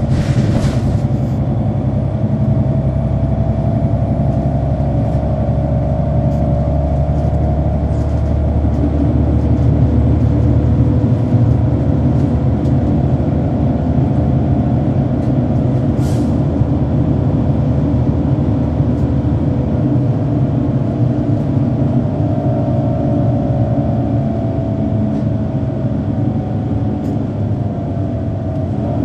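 Interior of a Neoplan AN459 articulated bus under way: its Caterpillar C9 ACERT diesel runs steadily under a drivetrain howl whose pitch climbs slowly twice. A short hiss comes near the start and another about midway.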